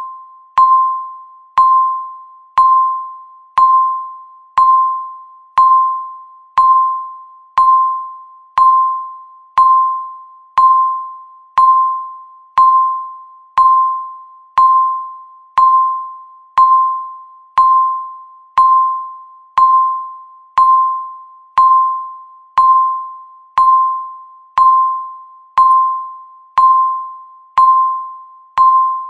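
Countdown timer beeping once a second, each beep a single pitched tone that starts sharply and dies away before the next.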